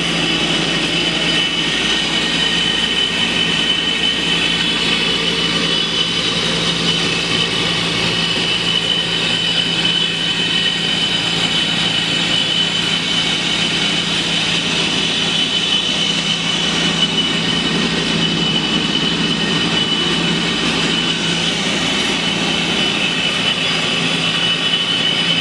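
WPC sanding machine running steadily: a loud, even mechanical noise with a steady high whine over a low hum.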